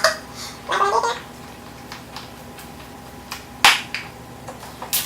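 Two sharp clicks, the first about three and a half seconds in and the second near the end, over a faint steady hum, with a brief voice about a second in.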